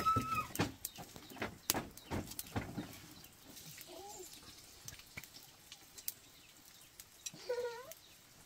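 Farm animals calling: a few short pitched calls, one at the start, one about four seconds in and a wavering one near the end, with scattered clicks and knocks in the first three seconds.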